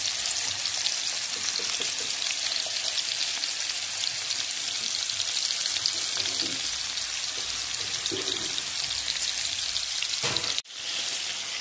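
Minced-meat patties frying in a little hot oil in a pan over lowered heat, giving a steady sizzle. The sizzle cuts out briefly near the end, then resumes.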